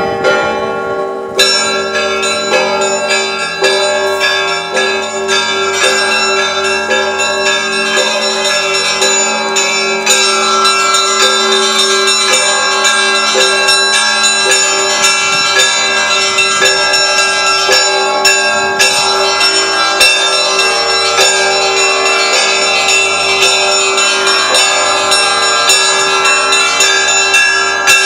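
Russian Orthodox church bells of the Kazan Cathedral rung in a full peal: rapid, dense strokes on the small bells over the long, steady hum of the larger bells. The quick high strokes come in about a second in, and the ringing grows a little fuller and louder about ten seconds in.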